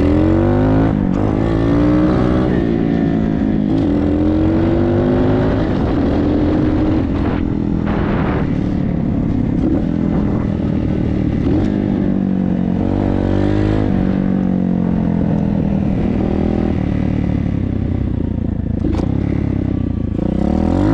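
Hawk 125 dirt bike's 125cc single-cylinder engine running, its revs rising and falling repeatedly.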